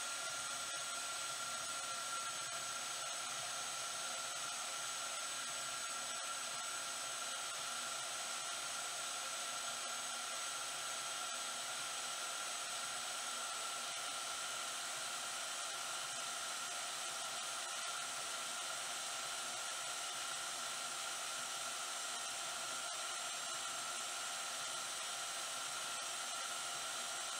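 Vevor portable metal-cutting bandsaw running at its lowest speed setting, its blade slowly cutting through a 10 mm thick, 25 mm wide steel bar under the saw's own weight: a steady whine with high tones that doesn't change.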